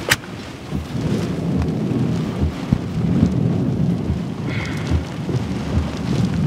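Heavy rain and gusty wind battering a car in a severe thunderstorm, heard from inside the cabin as a dense low rumble with a wash of rain on top. A sharp knock at the very start.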